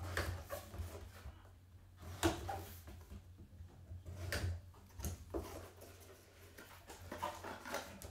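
Gloved hands handling trading cards and a cardboard card box on a table: irregular soft taps, rustles and scrapes over a steady low hum.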